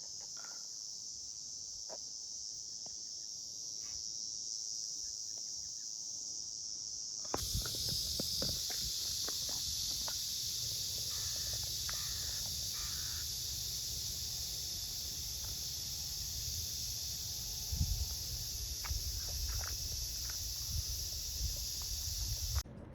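Cicadas singing, a continuous high-pitched buzz. About seven seconds in a different recording cuts in with a louder, fuller buzz over a low rumble and scattered knocks.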